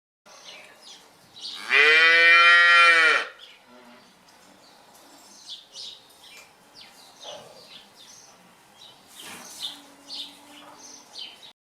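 Cow mooing: one long, loud call about two seconds in, followed by fainter short chirping sounds.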